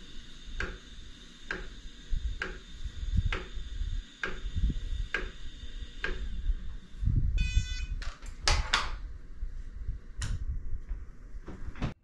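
iOptron GEM28 goto mount slewing at high speed: a steady high motor whine with a regular clunk about once a second. The whine stops about seven seconds in, followed by a few louder knocks. The clunking is the unusual noise the owner suspects may be creating backlash in the mount.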